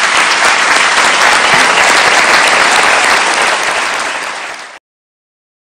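Audience applauding: steady, dense clapping that eases slightly, then cuts off suddenly near the end.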